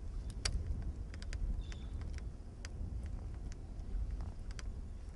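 Wind rumbling on the microphone, with scattered light clicks and ticks and one short high chirp about two seconds in.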